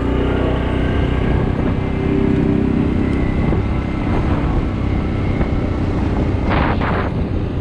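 ATV engine running while riding, its pitch shifting up and down with the throttle. A couple of short noisy bursts come about six and a half seconds in.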